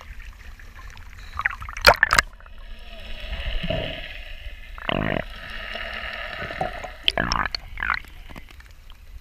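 Sea water sloshing and gurgling around a waterproof camera housing at the surface, half in and half out of the water. A few sharp splashes or knocks come about two seconds in and again about seven seconds in.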